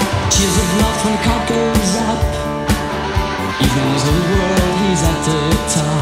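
Rock band playing an instrumental passage: electric guitars and bass over a steady drum beat, with a lead line bending up and down in pitch through the middle.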